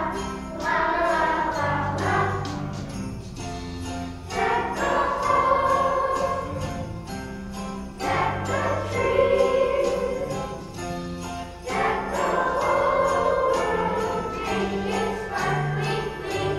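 Children's choir singing a winter song over instrumental accompaniment, with jingle bells shaking along to the beat.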